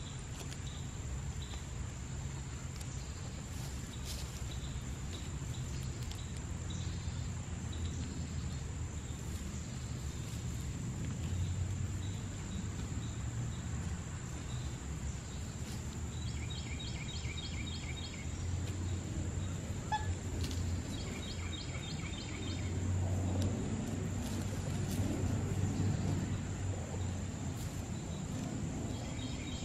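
Outdoor ambience around free-ranging backyard chickens foraging in leaf litter: a steady low rumble under a constant high insect drone, broken three times by a short rapid trill. Soft rustling and scratching in dry leaves grows louder in the last few seconds.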